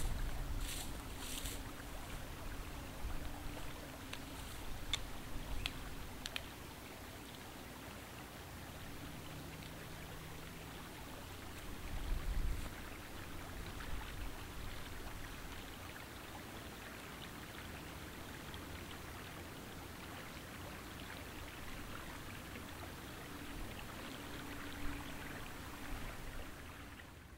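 Creek water running with a steady hiss, and wind gusting on the microphone now and then, most strongly about twelve seconds in. A few light footsteps crunch in snowy grass in the first few seconds.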